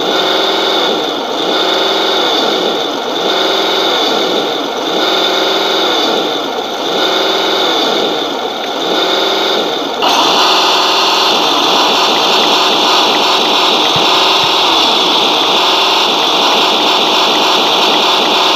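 A Toyota pickup RC scale crawler's electric drive motor and gears whining, rising and falling over and over about every two seconds, while the truck shows no sign of moving; the sound jumps louder and brighter about halfway through.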